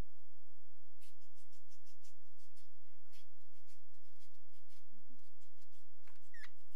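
Parrot scratching and clicking about its wire cage in a quick, uneven run of small scratches. Near the end the parrot gives one short whistle that drops in pitch and then holds.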